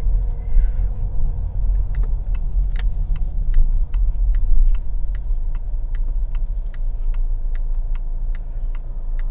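Car's turn-signal indicator ticking about twice a second, heard inside the cabin over the steady low rumble of the engine and tyres. The ticking starts about two seconds in.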